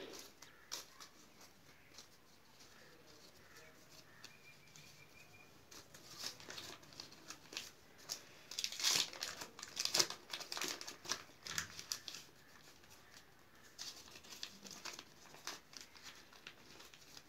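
Folded paper banknotes rustling and crinkling as they are picked up, unfolded and counted by hand, in clusters of quick crackles that are loudest a little past the middle.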